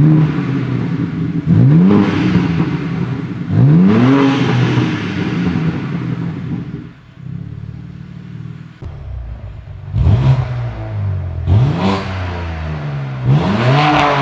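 BMW M4 G82's S58 twin-turbo straight-six idling and given short throttle blips, each a quick rise and fall in pitch. Three blips through the stock exhaust with its valves open, then, after a few seconds of idle, three more through a Fi Exhaust valvetronic catback with catless downpipe and the valves closed.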